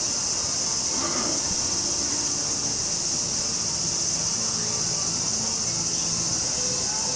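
A steady, high-pitched chorus of insects shrilling without a break.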